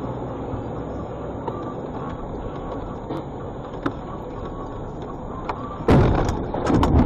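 Steady engine and road noise inside a vehicle on a snowy highway with faint rattles. About six seconds in comes a sudden loud crash, followed by repeated banging and scraping as the vehicle runs off the road at the guardrail into the snow.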